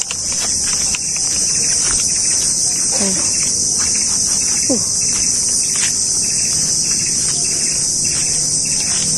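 Loud, steady, high-pitched drone of a forest insect chorus, unbroken throughout.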